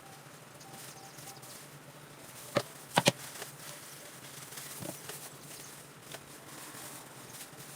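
A few small sharp clicks and taps over a faint steady background: the hair-dye tools being handled while dye is applied to the roots. One click comes at about two and a half seconds, then a quick pair about three seconds in, and a fainter one near five seconds.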